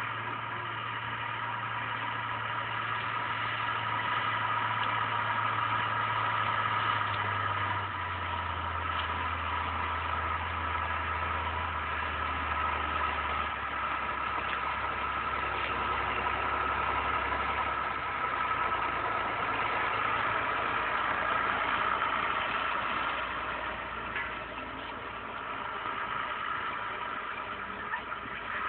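John Deere 3030 tractor's diesel engine running steadily under load while pulling a disc harrow through stubble.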